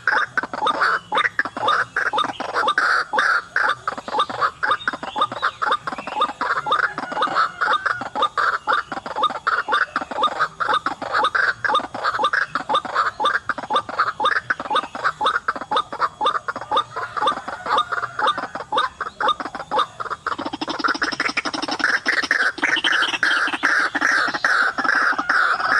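White-breasted waterhen calls: a long, continuous run of rapid, harsh repeated notes that shifts in pattern about 20 seconds in.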